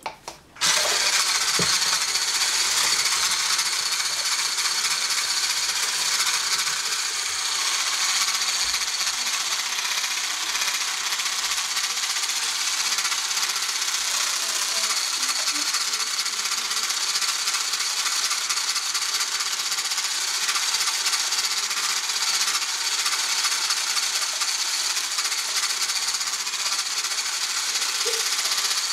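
Handheld electric whisk switched on under a second in, after a couple of clicks, then running steadily as it beats mascarpone into egg-yolk cream in a stainless steel saucepan.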